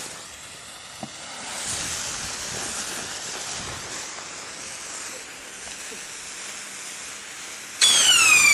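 A lit firework hissing and sizzling as it burns. Near the end a firework whistle starts suddenly, loud, and slowly falls in pitch as a rocket goes up.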